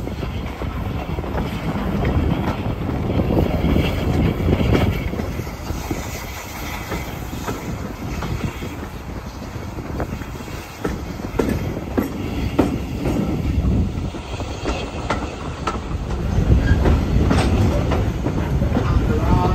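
Passenger carriage of a steam-hauled heritage train running along the line, heard at an open window: a steady rumble with the clickety-clack of wheels over rail joints, louder near the end.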